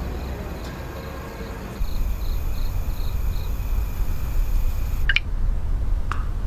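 Quiet night ambience: a steady low rumble with faint, evenly spaced insect chirps, about three a second, in the first half. A few light clicks follow near the end.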